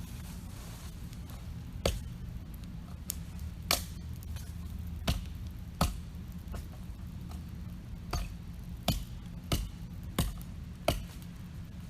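Axe splitting small sticks into kindling: about nine sharp knocks at irregular intervals, roughly a second apart, over a steady low rumble.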